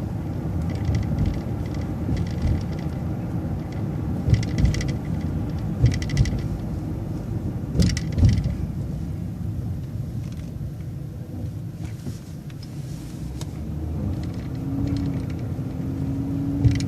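City transit bus driving, heard from inside: steady engine and road rumble with short bursts of rattling every second or two. A low whine comes in about two-thirds of the way through and holds.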